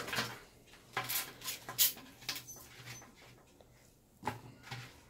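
Scattered soft handling noises as grilled meat is pulled apart by hand over a metal baking tray: a few short clicks and rustles, the loudest near two seconds in.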